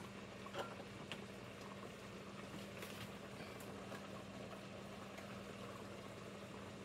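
Pots simmering on a stovetop: a faint, steady bubbling under a low steady hum, with a few light clicks, the loudest about half a second in.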